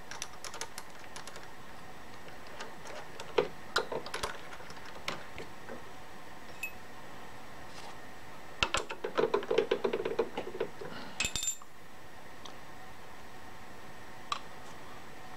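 Metal clicks and clinks of a drill chuck, drill bit and hand tools being handled while a drill bit is changed on a mill-drill. Scattered single clicks come first, then a run of rattling clinks about nine to eleven seconds in.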